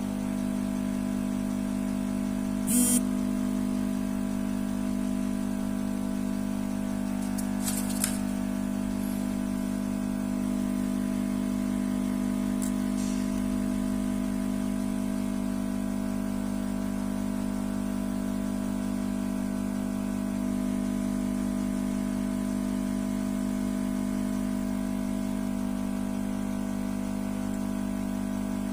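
A steady mechanical hum that holds one pitch throughout, with a short sharp click about three seconds in and a few fainter clicks around eight seconds.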